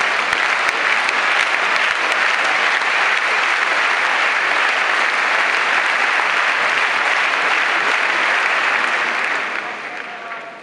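A large tennis stadium crowd applauding, a dense and steady clapping that dies away near the end.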